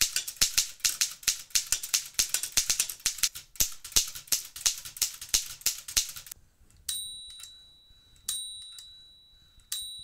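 Remington Travel-Riter manual typewriter being typed on fast, its typebars striking in quick, sharp, snappy clacks for about six seconds. Then a clear bell-like ding sounds three times, each fading over about a second, most likely the typewriter's margin bell.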